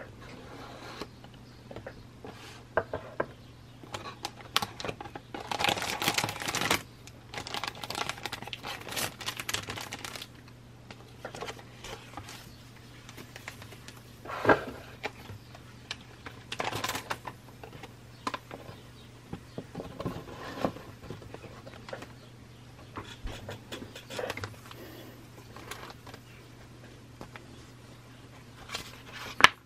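Fingernails tapping and scratching on a cardboard model-kit box, the box being opened and its paper instruction booklet handled, close to the microphone in ASMR style. Scattered sharp taps and clicks, with a stretch of denser rustling about five to ten seconds in.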